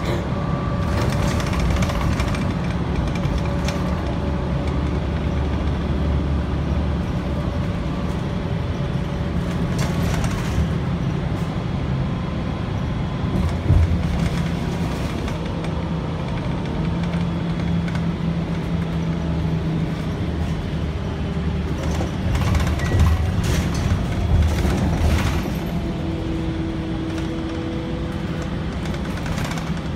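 Bus riding at speed, heard from inside: a steady low engine and road rumble with a faint whine that slowly drifts in pitch. A few knocks and rattles come through, the loudest about 14 seconds in and several more a little past the 20-second mark.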